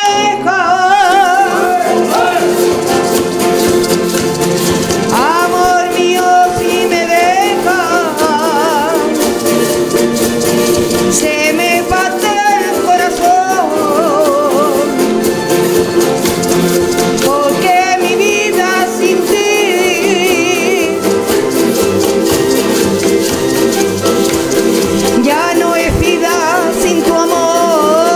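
Traditional Canarian folk music: a group of guitars and lutes strumming a steady accompaniment while a woman sings a melody with a wide vibrato, in phrases with short breaks between them.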